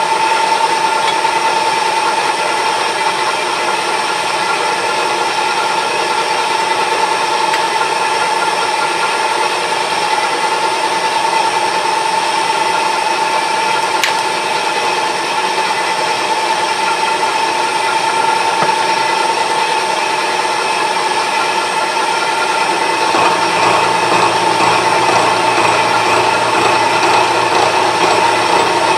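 Milling machine running an involute gear cutter through a metal gear blank held in a dividing head: a steady machine sound with a steady whine. A single sharp click comes about halfway through, and near the end the sound turns louder and rougher, with a lower hum added.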